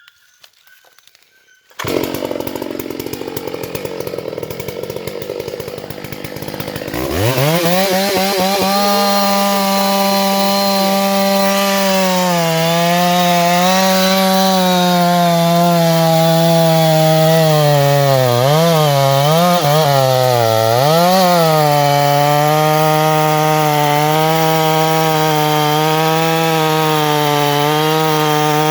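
Large two-stroke chainsaw, called a '650' by its operator, comes in about two seconds in with a rough idle. About seven seconds in it revs up sharply to full throttle and holds there, cutting into a barmali log. Its pitch dips a few times as the chain bogs in the wood, then it runs steady again.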